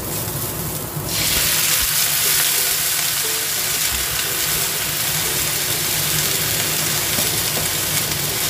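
Chopped garlic sizzling in oil in a nonstick frying pan, stirred with a wooden spatula. About a second in, broccoli florets go into the hot pan and the sizzle turns suddenly louder and brighter. It then runs on steadily as the broccoli is stir-fried.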